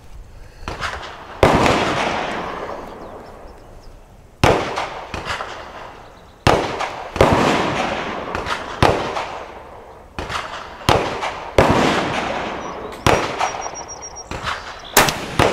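Gunfire at a shooting range: a dozen or so sharp cracks at uneven intervals, coming closer together in the second half, each with a long fading echo. A louder, sharper crack comes just before the end.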